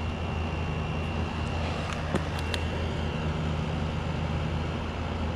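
Kool King window air conditioner running steadily: a low compressor hum under the whoosh of its fan, with a couple of faint ticks about two seconds in. It is running normally on its first startup of the season, the compressor sounding good and the coils getting cold.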